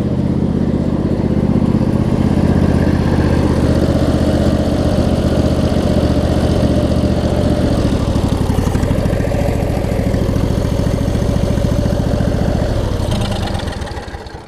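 Craftsman DLT's 25 hp Briggs & Stratton V-twin engine running steadily, then dying out about 13 seconds in as it is stopped by hand, because its ignition ground-out kill does not work.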